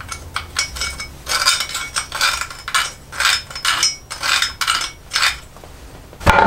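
Pencil scratching in a quick series of short strokes as it traces the inside of a steel axe head's eye onto the end of a wooden handle, with a faint metallic ringing from the head.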